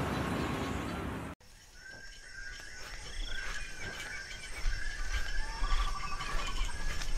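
A steady wash of noise cuts off abruptly about a second and a half in. Forest birds then call in short repeated chirps with a trill, over a low rumble that grows toward the end, fitting a wooden ox cart rolling along a dirt track.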